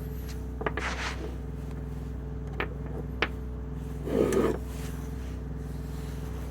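Metal gearbox parts being worked off a shaft by hand: a few sharp clicks and knocks, and a short scraping rub a little past the middle, over a steady low hum.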